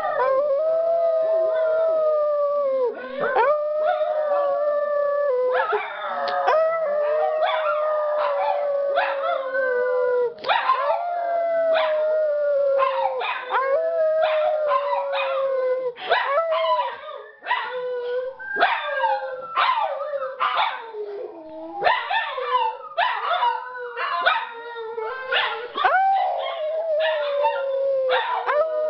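Several dogs howling together in long, wavering, overlapping howls. From about six seconds in, short sharp yips and barks break in among the howls.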